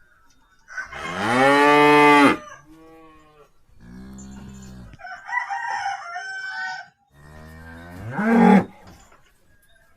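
A calf giving long, moaning moo-like calls: a loud one about a second in, a quieter, lower one around four seconds, and another that rises in pitch near the end. The uploader takes these for the calf snoring in its sleep. Between the calls, around five to seven seconds, a chicken clucks more faintly.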